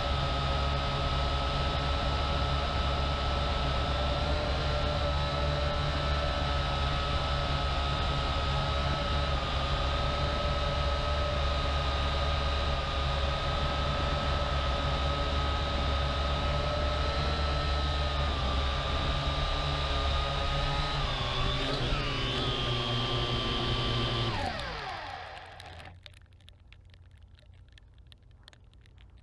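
Syma X8HG quadcopter's motors and propellers running with a steady whine and hum while it hovers, wavering briefly. About 24 seconds in, the motors spin down with a falling whine as the drone lands in the grass, leaving only a faint hiss.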